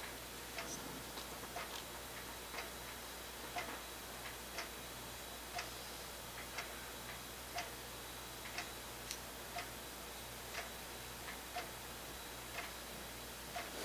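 A clock ticking faintly about once a second, with a few fainter clicks between the ticks.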